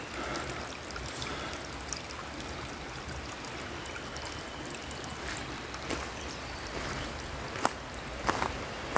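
Steady rush of running water from a stream or waterfall, with a few short sharp clicks near the end.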